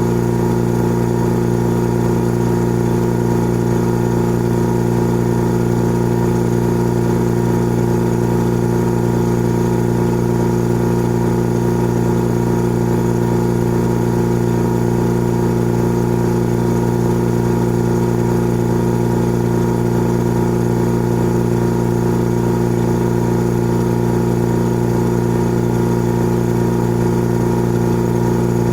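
Old electric air compressor running continuously, a steady low hum that does not change.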